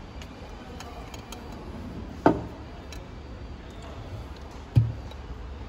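Two knocks about two and a half seconds apart, with a few faint clicks between them: a phone-screen laminating mould being set into the chamber of a vacuum laminating machine and the chamber door being shut.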